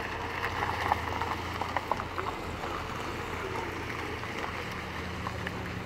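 Sports car engines idling steadily with a low hum, under wind noise, with a few short clicks in the first two seconds.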